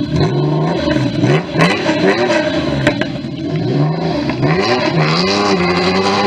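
Car engine revving hard, its pitch rising and falling several times, with a couple of sharp pops.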